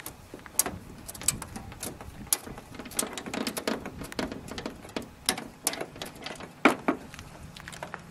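Irregular clicks and metal knocks as the side panel of an SS Jaguar 100's hinged bonnet is unlatched and lifted, its tighten-down knob fasteners and bottom hook worked by hand. One louder knock comes near the end.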